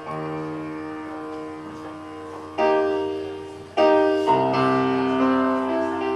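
Sustained keyboard chords. A new chord is struck about two and a half seconds in and again near four seconds, and each one slowly fades: a backing track played again at a sound check to check its key.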